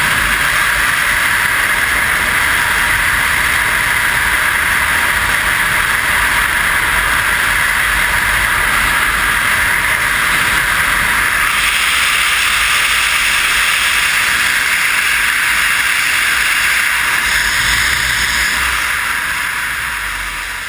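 Steady rush of freefall wind buffeting a skydiver's helmet-mounted camera, fading out near the end.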